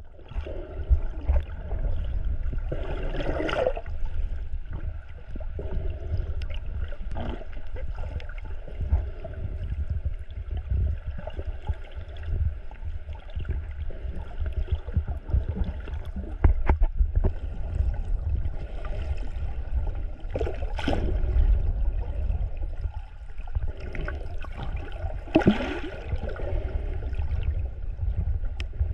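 Water noise heard on a submerged camera: a steady low rumble with gurgling, and a few brief louder swishes spread through.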